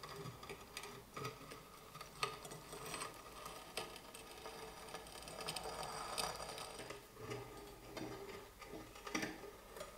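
Faint, irregular light clicks and taps with soft scraping between them, and a few sharper ticks about two, four, six and nine seconds in.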